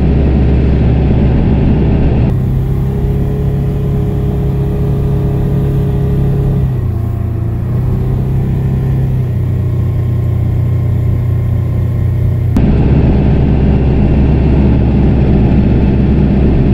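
Kioti RX7320 tractor's diesel engine running steadily under load while plowing snow, heard from inside the cab at first and near the end. In the middle stretch the engine is heard from outside, its pitch dipping briefly about seven seconds in.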